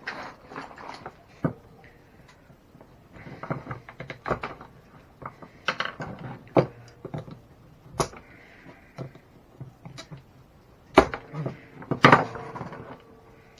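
Irregular clicks, taps and clatter of hand tools and plastic and metal parts being handled while an RC truck is taken apart, with a few sharper knocks about eight, eleven and twelve seconds in.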